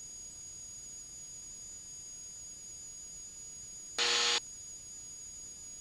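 Steady faint hiss with thin, high-pitched steady whines, and a single short buzzing beep about four seconds in.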